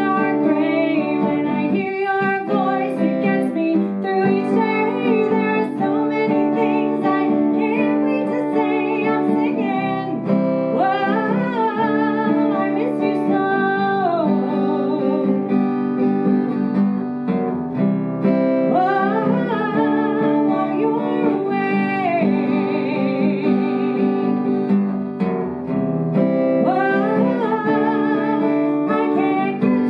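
A woman singing a song while accompanying herself on guitar, her voice in long phrases that glide up and down over steady guitar chords.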